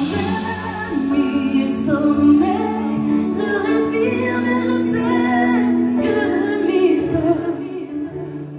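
A female pop singer singing live into a microphone over backing music through a concert sound system, heard from the audience.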